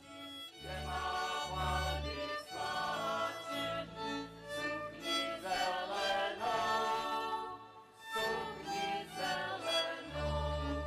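Czech folk song sung by a group of men's voices with a folk band of fiddles and double bass, the bass notes loudest at the start and near the end. The song breaks off briefly about eight seconds in, then carries on.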